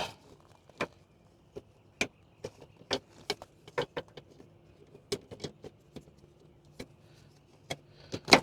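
Irregular small clicks and taps, a dozen or more, from hands working at a headlight bulb socket, its plastic housing and wiring connector, over a faint steady hum.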